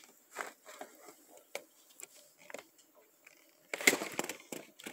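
Faint, scattered rustling and small knocks of hands rummaging among plastic bags and packages, with a louder flurry of rustling about four seconds in.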